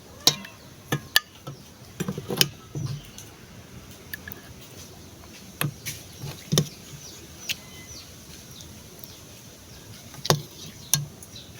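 Scattered light clinks and knocks of plates and spoons as people eat, a dozen or so at irregular intervals, over a faint steady background hiss.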